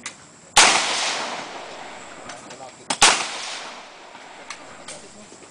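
Two single shots from an AR-15-style carbine, about two and a half seconds apart, each followed by a long echoing tail.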